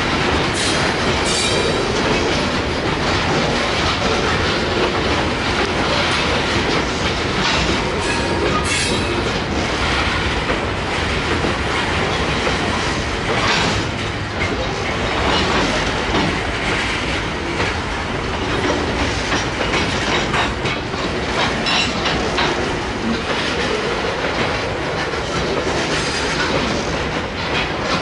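Loaded covered hopper cars of a slow freight train rolling past, steel wheels clicking over the rail joints, with a few brief high-pitched wheel squeals on the curve.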